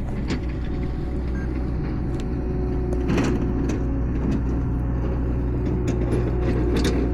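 Skid steer's engine running steadily as the machine works past, swelling louder about three seconds in and again near the end, with a few sharp clicks over it.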